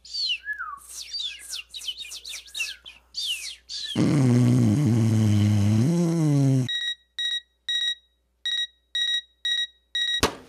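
Birds chirping, then a long, low groan from a man's voice lasting a few seconds. A digital alarm clock then beeps in quick short beeps, about two or three a second, and a sharp click comes just before the end.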